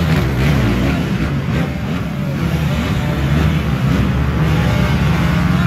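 Motocross bike engine running steadily while its rear wheel spins in deep mud, the bike bogged down.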